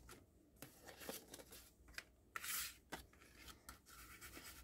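Faint rubbing and paper handling as an ink applicator is worked along the edges of paper pieces, with one louder brushing stroke about two and a half seconds in and a few soft taps.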